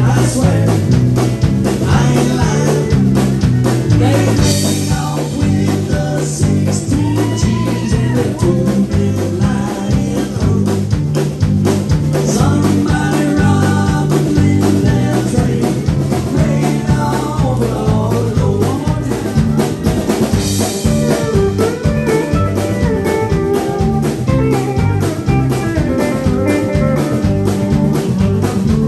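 Live band playing an upbeat song: electric bass line, electric guitar and drum kit.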